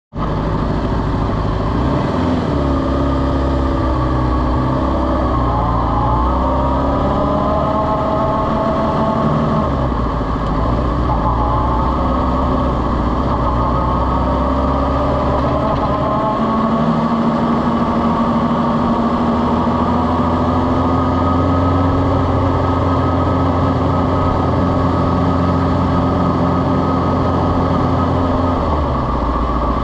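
Honda sport bike's engine running at low revs while the bike is ridden slowly. Its pitch rises and falls gently over the first ten seconds or so, then holds steady.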